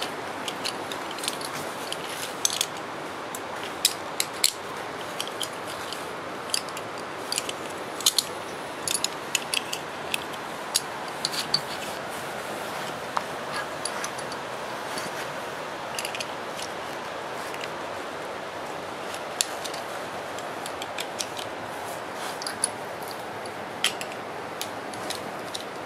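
Scattered short metallic clicks and clinks of an M1 Garand rifle and its loaded ammunition clips being handled at a shooting bench, most of them in the first half, over a steady hiss.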